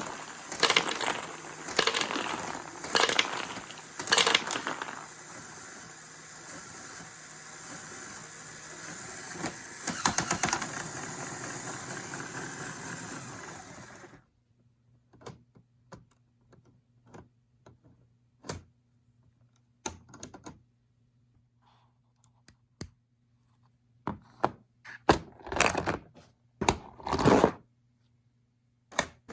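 Plastic Lego parts clicking and clattering: a continuous mechanical rattle packed with sharp clacks stops abruptly about halfway through. After it come scattered light clicks, then a few louder clatters near the end.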